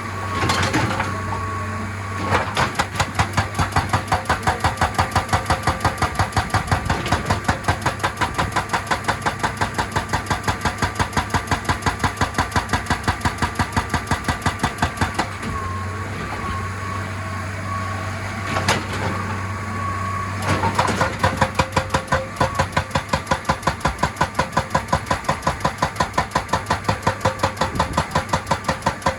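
Excavator-mounted hydraulic rock breaker hammering rock at about four to five blows a second, over the excavator's running diesel engine. The hammering starts about two seconds in, pauses for about five seconds past the middle while the engine runs on, then resumes.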